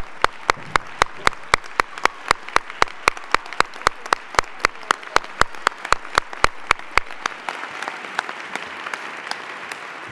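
Hands clapping close to a podium microphone, sharp even claps about five a second that stop about seven seconds in, over a hall audience's applause that carries on and begins to fade near the end.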